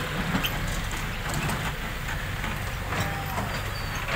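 Diesel tractor engine running steadily, a continuous low drone.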